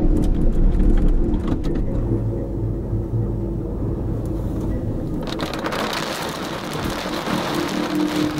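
Car cabin noise while driving: a low road rumble and steady engine hum, with a few sharp clicks. About five seconds in it switches abruptly to a steady hiss of heavy rain and wind.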